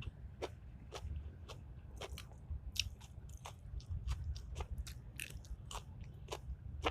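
A person chewing food close to the microphone: irregular small clicks and smacks of the mouth, about two or three a second.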